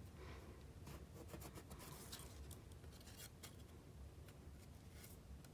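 Near silence with faint scattered taps and rustles of cardstock being folded and pressed into place.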